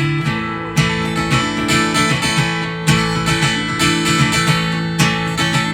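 Live country-rock music with no singing: acoustic guitar strummed over sustained notes, with a sharp accent about every two seconds.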